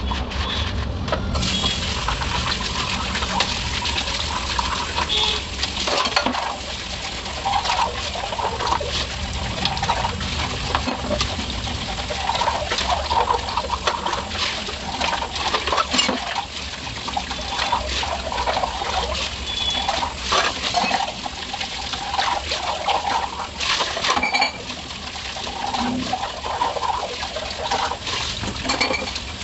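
Stainless steel tumblers being washed by hand in a sink: tap water running and splashing over them, with frequent sharp metallic clinks as the tumblers knock against each other and other steel dishes.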